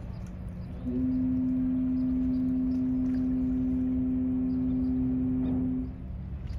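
A ship's horn sounding one long, steady blast of about five seconds, starting about a second in, over a low rumble.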